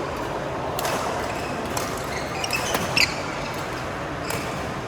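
Badminton rally: sharp racket strikes on the shuttlecock about once a second, with a few short high squeaks between hits.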